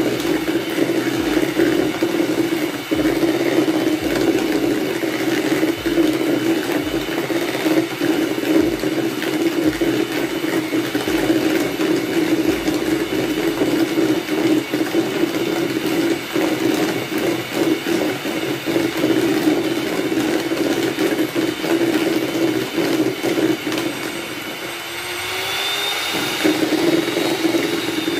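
Electric hand mixer running steadily, its twin beaters whisking cake batter in a bowl. Near the end the motor briefly slows, then picks back up.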